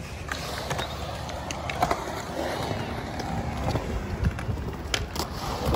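Skateboard wheels rolling on concrete: a steady rumble with a few sharp clacks.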